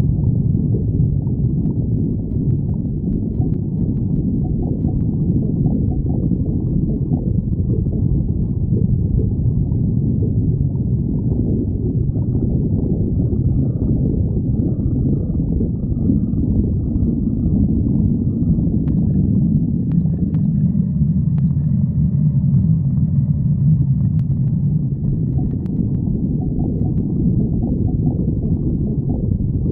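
Stomach growling: a continuous low rumbling and gurgling that runs without a break, settling into a deeper, stronger rumble about twenty seconds in.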